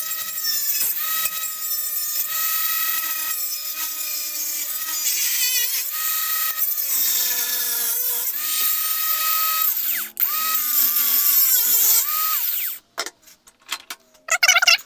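Angle grinder with a cutoff wheel cutting through a sheet-steel electrical box lid: a steady high whine over a harsh hiss, the pitch sagging each time the wheel bites into the metal. It pauses briefly about ten seconds in, then runs on and stops about thirteen seconds in.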